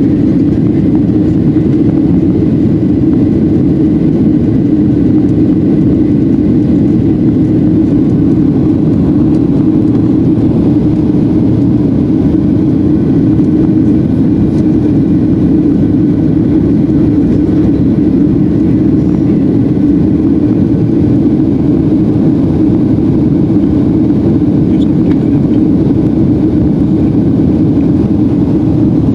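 Steady, loud engine and airflow noise inside the cabin of a Boeing 737-800 during its climb after takeoff, its CFM56-7B turbofans at climb power: a low even rumble with a faint high whine over it.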